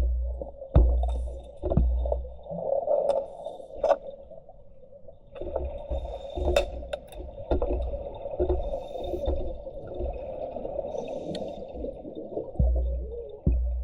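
Muffled underwater noise from a scuba dive: a steady bubbling rumble with scattered sharp clicks, and dull low thumps about a second apart near the start and again near the end.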